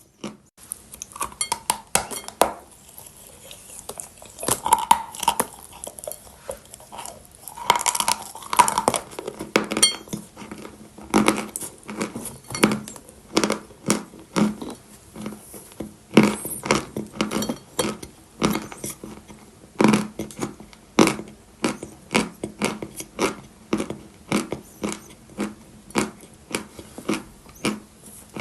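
Dry natural chalk being bitten and chewed close to the microphone: a long run of sharp, dry crunches, dense and irregular at first, then coming at an even pace of about one or two a second.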